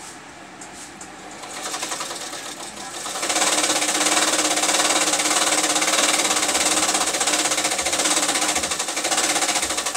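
A small motorised machine running with a fast, even rattle over a steady hum, growing loud about three seconds in and easing off near the end.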